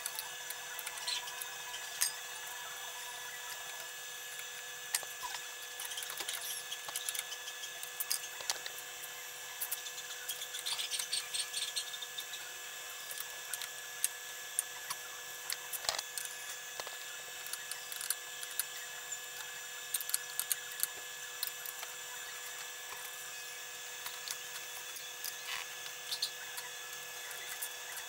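Metal clicks and clinks from a socket wrench turning bolts on a trike's steel frame, with a quick run of ticks partway through. A steady high-pitched hum runs underneath.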